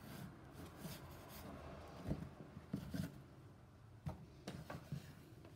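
Faint rubbing and handling noise with a few soft knocks scattered through.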